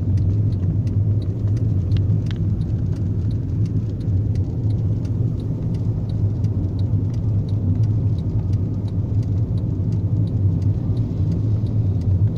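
Car engine fitted to a homemade 'bulldog' vehicle, running steadily under way at a low, even pitch, with faint regular ticking over the hum.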